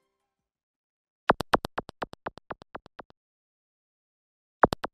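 Editing sound effect for an animated title card: a quick run of about a dozen sharp clicks, about seven a second, fading away, then a quick double click near the end.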